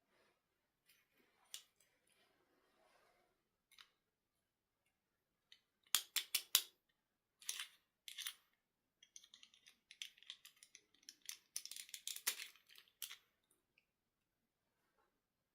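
Hands handling a toy doll and its plastic packaging: a quick run of sharp clicks or snips about six seconds in, a few more a little later, then a stretch of denser clicking and crinkling, with quiet gaps between.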